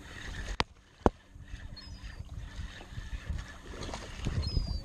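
Two sharp clicks about half a second apart, then wind and water noise, with a hooked bass splashing at the surface near the end and a brief high bird call.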